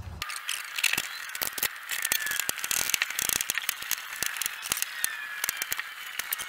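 Steel bar clamps being screwed down onto wooden boards over a bent car hood edge to press it straight: a run of irregular metallic clicks and ticks from the clamp screws and jaws, with a few faint squeaks.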